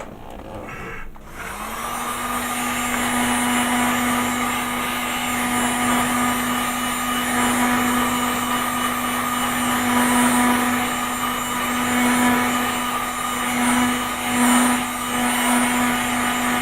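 Handheld hot-air blower running to dry wet paint: it starts up about a second in, then a steady hum under a rushing stream of air, the airflow sound swelling and dipping slightly as it is moved over the piece.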